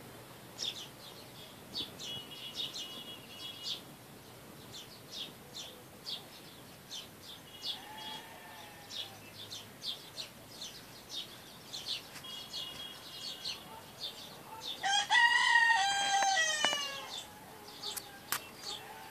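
A rooster crows once, about two seconds long and the loudest sound, about fifteen seconds in, with a falling tail at its end. Small birds chirp in short, rapid calls throughout, and a fainter call comes about eight seconds in.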